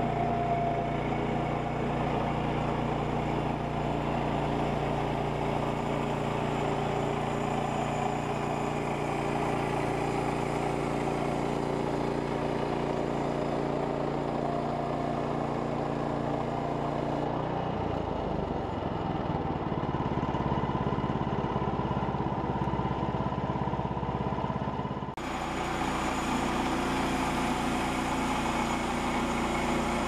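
Woodland Mills portable bandsaw mill running steadily, its gasoline engine driving the band blade through a log. For several seconds past the middle the sound turns rougher and duller, then the steady engine note returns abruptly.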